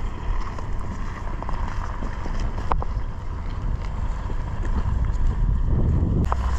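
Wind buffeting the microphone as a low, steady rumble, with a few short clicks and a louder surge of rumble near the end.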